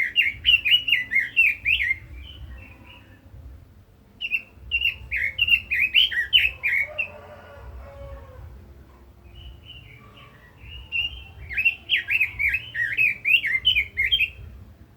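Red-billed leiothrix singing: three bouts of a rapid, warbling song of quick rising and falling notes, the first at the start, the second about four seconds in and the third about ten seconds in, with short pauses between.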